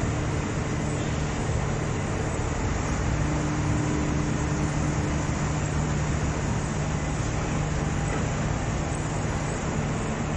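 Industrial wood chipper and its feeding conveyor running: steady mechanical noise with a constant low hum and no breaks.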